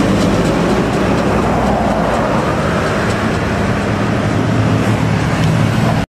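Mercedes-Benz diesel coach pulling away: a steady low engine drone with tyre and road noise.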